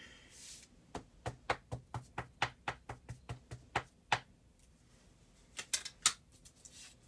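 A brown ink pad dabbed repeatedly onto a wood-mounted rubber stamp, light taps at about five a second for some three seconds. A brief rustle comes first, and a few sharper clicks follow about a second after the tapping stops.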